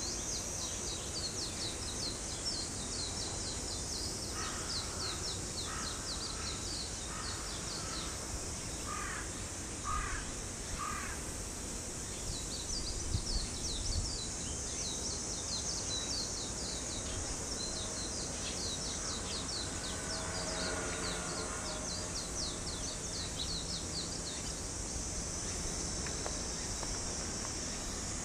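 A crow cawing in a run of about eight calls, starting a few seconds in and lasting about six seconds. Rapid, high insect chirring comes and goes throughout, over a steady outdoor background noise.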